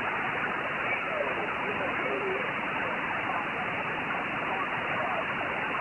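Kenwood TS-890 transceiver receiving single-sideband on the 10-metre band: steady static hiss, cut off above about 3 kHz, with a weak voice barely audible under the noise, a station fading in and out (QSB).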